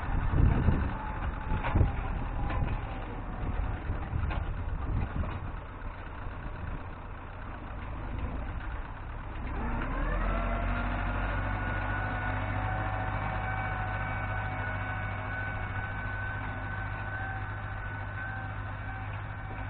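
Tractor engine working a plough: loud low rumbling with scattered knocks at first, then about halfway through the engine note rises in pitch and settles into a steady hum.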